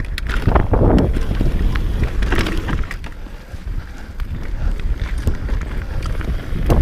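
Enduro motorcycle riding over a rough dirt track: engine running under heavy wind buffeting on the microphone, with scattered knocks and rattles from the bike over bumps.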